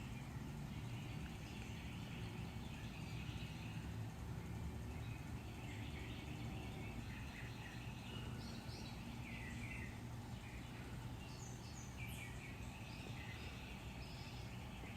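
Faint outdoor ambience: a steady low hum with small birds chirping here and there, mostly in the second half.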